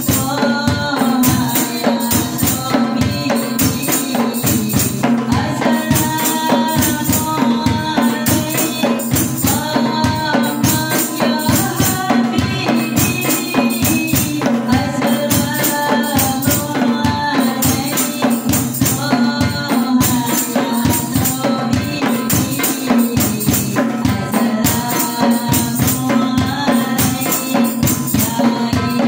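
Sholawat: a woman singing an Arabic devotional song into a microphone over a steady beat of rebana frame drums, a hand drum, a large drum and a jingling tambourine.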